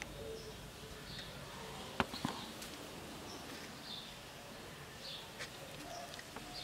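Quiet background with faint short high chirps every second or so, and two sharp clicks in quick succession about two seconds in.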